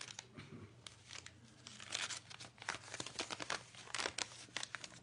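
Irregular crinkling and rustling of crinkly material being handled close to the microphone, a dense run of small crackles that grows busier and louder after the first second or so.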